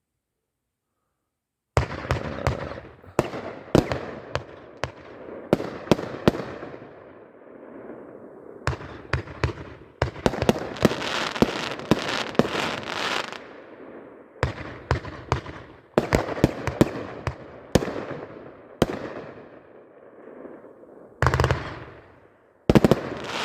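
Consumer firework cake, No Name Fireworks' 'Look Guys', firing after a second or two of silence: volleys of sharp shots and aerial reports in several bursts, each burst trailing off in a fading hiss.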